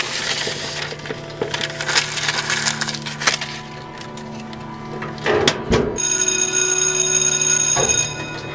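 Paper rustling and crinkling as sheets are handled and crumpled in a locker, with a thump about five seconds in. Then a loud electric school bell rings steadily for about two seconds and cuts off suddenly.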